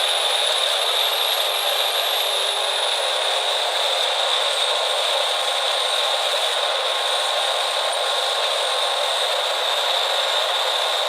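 Steady, unchanging machine noise with a strong high hiss and no low rumble, with a faint high whine wandering in pitch above it.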